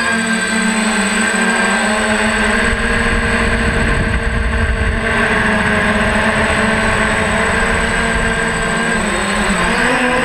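DJI F550 hexacopter's six electric motors and propellers whirring in flight, heard from a camera mounted on its frame. The pitch holds steady, then wavers near the end as the motor speeds change. A deeper rumble joins in from about two and a half to five seconds in.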